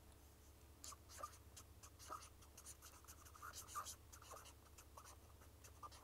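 Faint, irregular scratching strokes of a pen drawing on paper, in short quick strokes.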